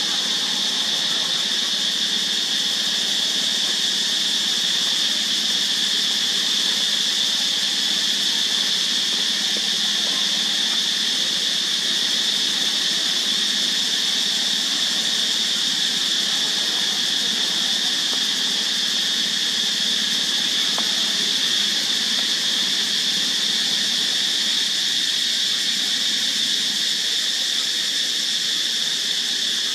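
A loud, steady, high-pitched insect drone, unchanging, with no pulses or breaks.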